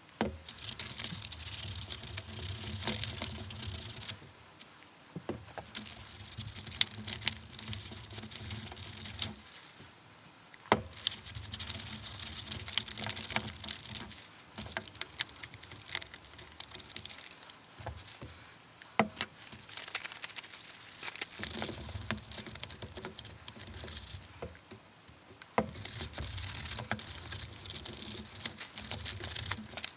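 A crumpled paper towel crinkling and rubbing over a stiff, dried leather helmet liner, worked into the leather to soften it. It comes in about six spells of rustling with short pauses, and a few sharp clicks fall between them.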